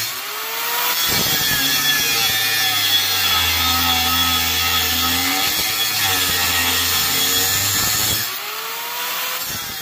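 Handheld angle grinder with an abrasive disc cutting through a steel lawnmower blade: a continuous high motor whine over a harsh grinding rasp, its pitch wavering as the disc bites. The sound lightens a little near the end.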